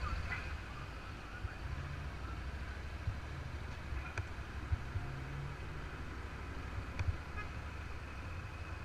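Motorcycle engine running at low speed while the bike rolls off slowly, a steady low rumble with a few faint clicks.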